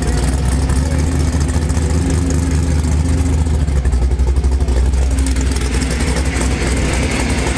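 Drag car's engine running at idle at close range: a steady, loud, low pulsing note that holds without revving up.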